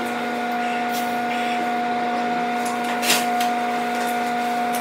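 Electric hand dryer running: a steady blowing drone with a fixed hum, switched on with a click just before and cutting off shortly after. A brief rustle about three seconds in.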